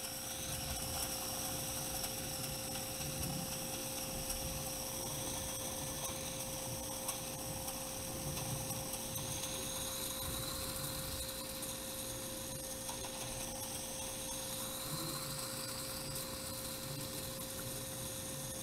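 Steady electrical hum with a constant mid-pitched tone and a faint high whine: room tone with no distinct event.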